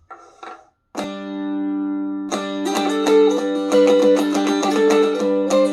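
Dulcimer strummed in old-time style: one chord about a second in rings on, then the tune starts a little later, a melody over steady droning strings.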